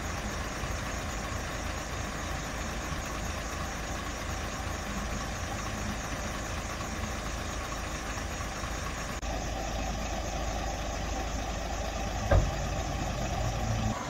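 Isuzu tilt-tray tow truck's diesel engine idling steadily. After about nine seconds the truck pulls away and drives off with a deeper rumble, and a single sharp thump sounds a few seconds later.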